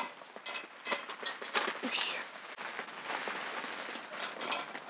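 Irregular clicks and light clatters of cooked red snow crab shells knocking against a stainless steel steamer pot and a steel tray as the crabs are lifted out and set down by hand.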